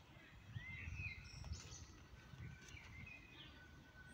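Faint birdsong: scattered short chirps and whistles over a low background rumble.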